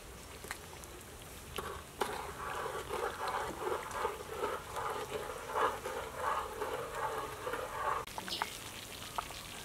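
A pot of taro chunks at a rolling boil, bubbling and popping while a spoon stirs through it. The bubbling grows louder about two seconds in and drops back about eight seconds in.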